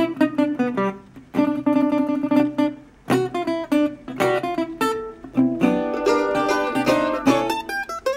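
Background music played on a plucked string instrument: a melody of picked notes that each start sharply and ring out, with short pauses between phrases.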